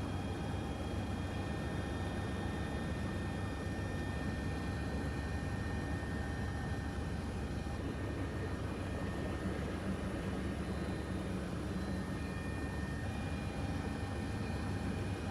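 Helicopter engine and rotor running steadily in flight, heard from inside the cabin as an even drone with a steady whine.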